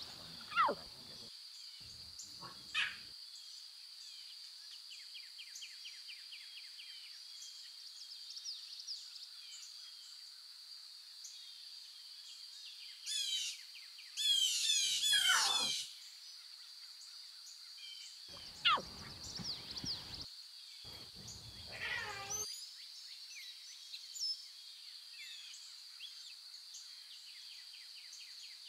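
Natural wildlife ambience: a steady high-pitched drone with scattered bird chirps and calls, the loudest a rapid run of bird song about halfway through. Several short calls drop sharply in pitch.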